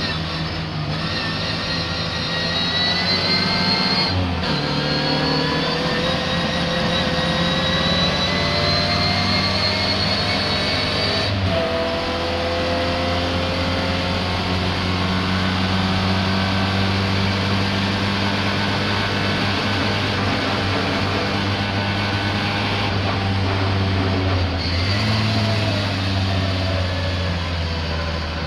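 Car engine running hard under acceleration, its pitch climbing and breaking at gear changes about four and eleven seconds in, then holding steadier. The engine is misfiring.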